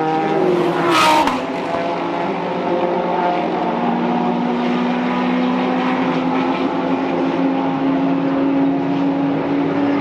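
GT race car engines at speed on a road course: a sharp, loud peak about a second in that drops quickly in pitch, then a long engine note climbing slowly in pitch as a car accelerates.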